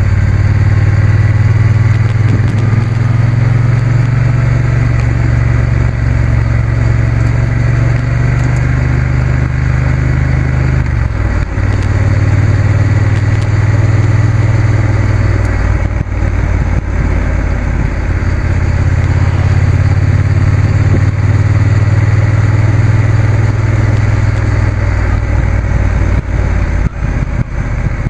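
Motorcycle engine running while under way. Its low drone dips briefly a few times and then picks up again.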